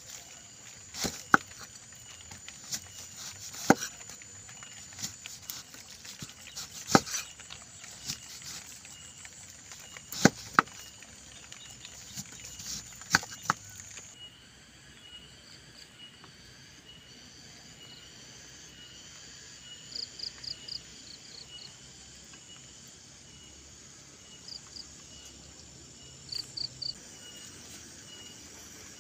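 A knife chopping through breadfruit on a woven bamboo tray: sharp knocks every few seconds for the first half. Insects chirp steadily underneath, with a few quick bursts of higher chirps in the second half.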